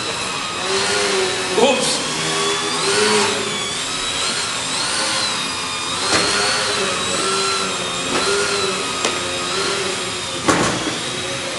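Small electric motor and propeller of an indoor foam RC aerobatic plane whining as it hovers nose-up, its pitch rising and falling about once a second with throttle corrections. A few brief clicks are heard along the way.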